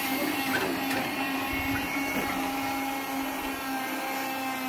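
A truck-mounted crane's hydraulic pump motor running with a steady whine as the boom is lowered.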